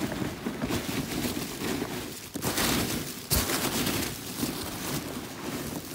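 Hand rummaging through a box of foam packing peanuts: dense rustling and squeaky crackling, with one sharper click about three seconds in.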